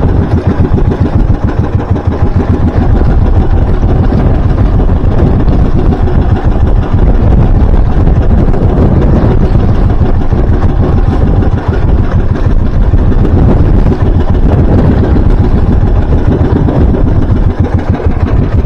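Engine of a motorized outrigger fishing boat running steadily while under way.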